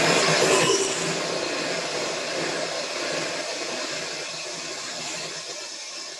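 Electric hand mixer running at high speed, its beaters whipping heavy cream in a glass bowl: a steady motor whirr that drops in level about a second in, then fades slowly.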